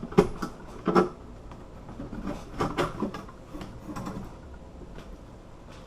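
Bolt cutters and a disk padlock being handled: two sharp metallic clicks in the first second, then a run of softer knocks and rattles about two to four seconds in.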